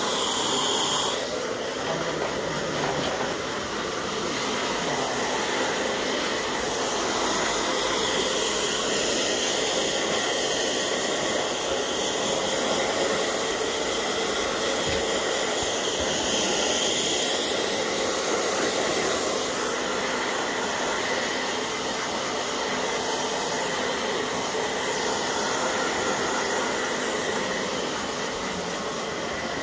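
Handheld hair dryer blowing steadily: a rushing hiss with a faint whine, swelling and fading slightly in level.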